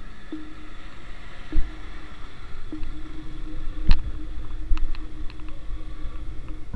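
Motorcycle running steadily on a rough road, with a steady low rumble of wind on the microphone. Two sharp knocks stand out, about one and a half and four seconds in.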